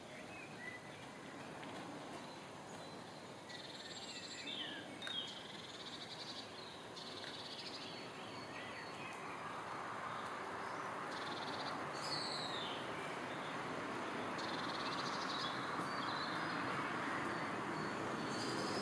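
Small songbirds singing short, high phrases every few seconds, some trilled and some gliding, over a steady background rush that grows louder in the second half.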